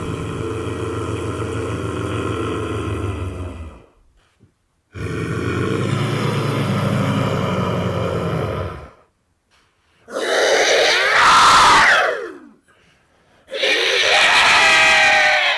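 A run of separate sound effects. First come two steady, low, buzzing groan-like tones of about four seconds each. Then come two shorter cries, each falling in pitch.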